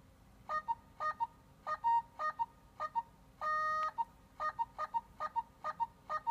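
Pocket Miku (Yamaha NSX-39) singing synthesizer playing a quick run of mikutter 'favorited' notification sounds: short electronic voice blips, often in pairs of a lower and a higher note, about three a second. One longer held tone comes about three and a half seconds in.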